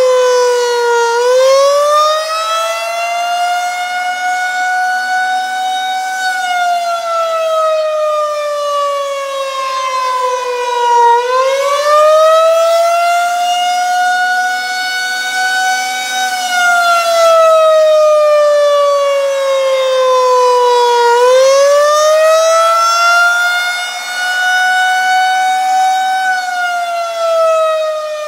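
Federal Signal 2001-130 rotating electromechanical outdoor warning siren sounding the attack signal: its tone rises quickly, holds, then falls slowly, three times about ten seconds apart. The sound swells and fades as the turning horn sweeps past.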